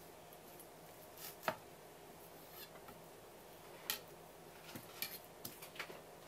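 A kitchen knife knocking and clicking lightly on a wooden cutting board as raw conger eel is sliced for sashimi: a few separate knocks with quiet between, the sharpest about a second and a half in, and a quick run of them near the end.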